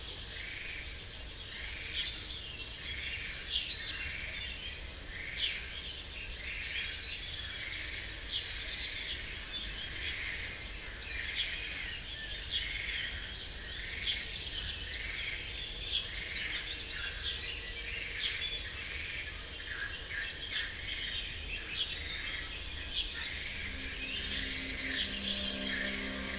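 Birds chirping, one call repeating evenly a little more than once a second, over a steady high insect trill like crickets. Low held tones come in near the end.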